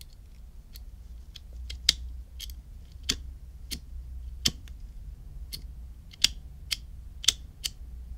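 Sharp metallic clicks from a vintage Ronson De-Light Junior Sport automatic petrol lighter being handled and worked at its top. About a dozen clicks come at irregular intervals, some much louder than others.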